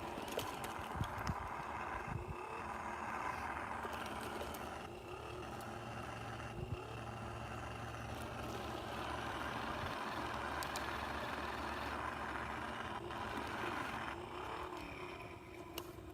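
Radio-controlled truck running steadily, driven through an icy puddle, with a few short clicks near the start.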